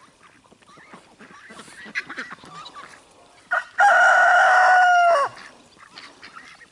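A rooster crows once, a single long held call starting about three and a half seconds in and falling away at its end. Fainter short bird calls come before it.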